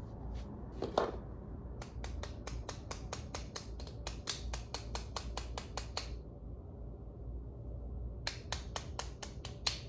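Two runs of rapid, evenly spaced sharp clicks, about seven a second, from hand-tool work during a brake pad change, with a low hum beneath.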